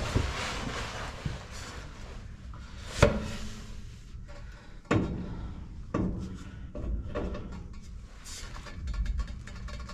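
Drive shaft being worked into the tailshaft of a 4L60E transmission: a few sharp metal knocks and clunks, the loudest about three seconds in, with scraping and handling in between.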